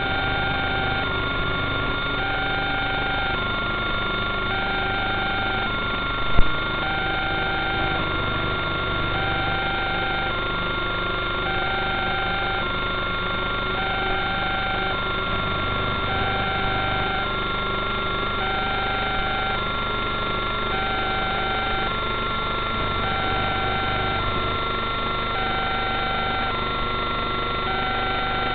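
Electronic beeping: two short tones alternating in pitch, repeating evenly about every second and a half, over steady high tones and a constant hiss. One sharp click about six seconds in.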